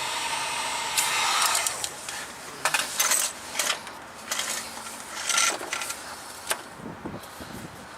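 Electric heat gun blowing with a steady hiss, stopping about a second in. Then come scattered clicks, clatter and short rustling bursts of hands handling the hot hose and tools.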